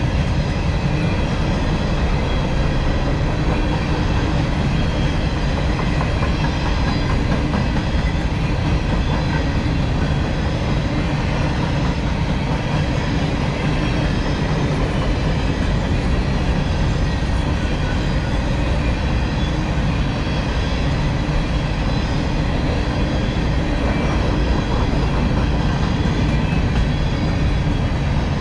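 Empty steel coal hopper cars of a unit freight train rolling past, their wheels running steadily on the rails as a constant low-heavy noise.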